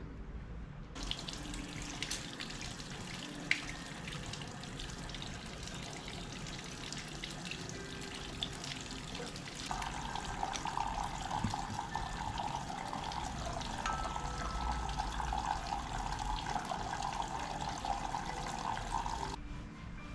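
Water running from a tap into a wash basin, rinsing hair during a shampoo. The flow starts about a second in, turns louder and fuller about halfway through, and stops shortly before the end.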